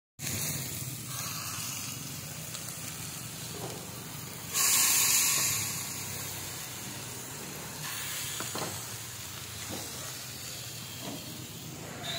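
Pork and marinated chicken wings sizzling on a hot tabletop grill pan: a steady hiss that flares up loudly for about a second, around four and a half seconds in, as more wings are laid on.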